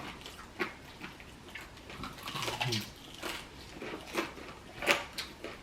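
Eating fried chicken: scattered wet smacks and clicks of chewing and lip-smacking, with light knocks from plates and hands, and a short low hum about halfway through.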